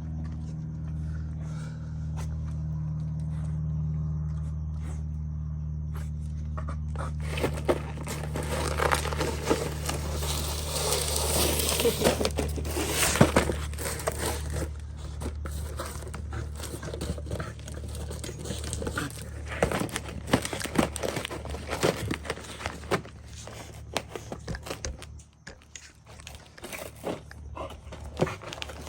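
Crinkling, crunching and tearing of packaging, starting about seven seconds in and busiest soon after, then thinning out into scattered crackles. A steady low hum runs underneath until near the end.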